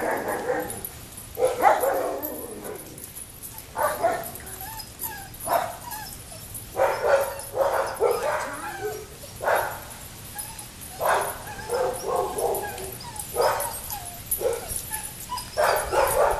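Small dog, a cockapoo, barking and yipping in short bursts again and again with uneven gaps, some barks falling into whines.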